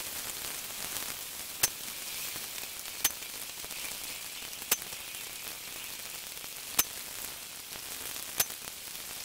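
Steady hiss of heavy rain, broken by five sharp cracks about one and a half to two seconds apart: an SMK B2 break-barrel spring air rifle firing a five-shot group.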